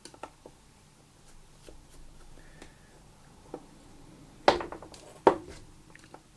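Screwdriver working small screws out of the front panel of a small aluminium amplifier case: faint scraping ticks, then two sharp metallic knocks a little under a second apart past the middle.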